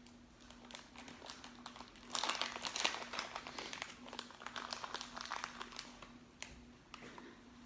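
Aluminium foil crinkling and crumpling as it is handled, loudest about two seconds in and thinning out later, over a faint steady hum.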